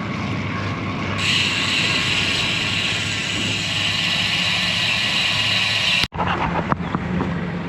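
Steady wind and road noise of a moving bicycle, with a hissing rush that swells about a second in and cuts off abruptly about six seconds in.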